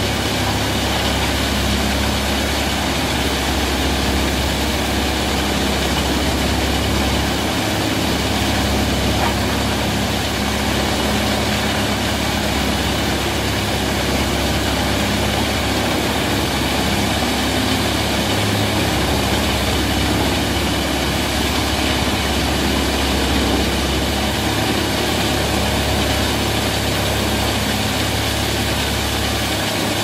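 A wood chipper's engine running steadily at a constant pitch.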